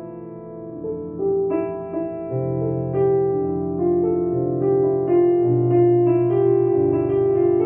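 Piano playing a slow piece: sustained melody notes over a bass line that changes every second or so, growing louder about a second in.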